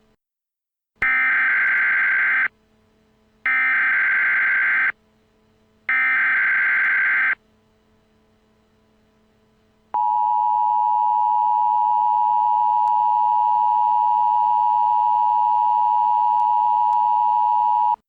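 Emergency Alert System tone sequence: three harsh digital data bursts (the SAME header), each about a second and a half long with a short gap between them. A few seconds later comes the steady two-tone attention signal, held for about eight seconds and then cut off suddenly.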